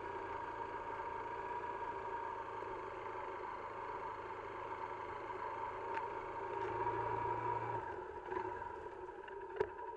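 A steady motor hum with several fixed tones, holding an even pitch, with a few sharp clicks near the end.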